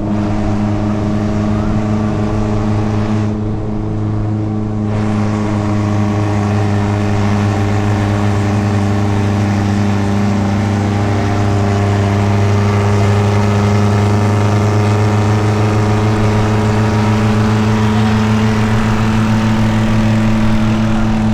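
Suzuki Jimny engine running at a steady speed, a constant low drone that holds its pitch and grows slightly louder partway through.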